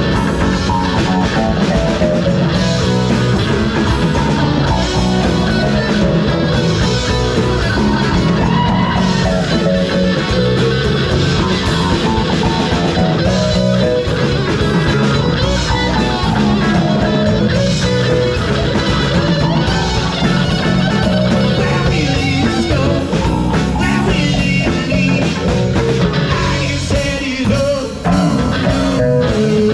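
Folk rock band playing a song, with guitar and singing.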